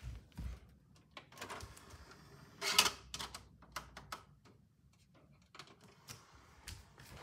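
Plastic clicks and clatter of a DVD being handled and set into a player's open disc tray, with one louder rattling click about three seconds in and a couple of dull thumps at the start.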